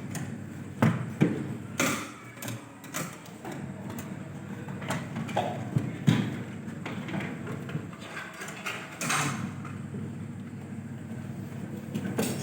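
Irregular knocks and clicks of parts and tools being handled, about a dozen spread unevenly, over a steady low hum.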